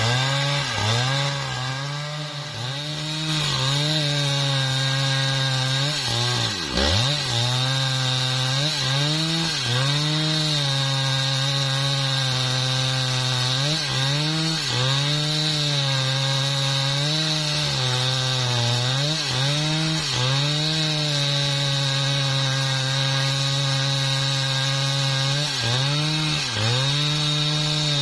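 Husqvarna 395XP two-stroke chainsaw ripping lengthwise through mahogany at high revs, its pitch dipping briefly again and again as the chain loads in the cut and recovering, with one deep drop about seven seconds in.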